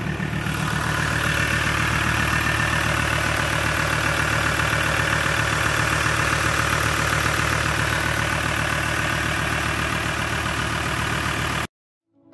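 Ford Ranger's 3.2-litre five-cylinder Duratorq TDCi diesel idling steadily under the open bonnet, a little louder from about a second in. It cuts off suddenly near the end.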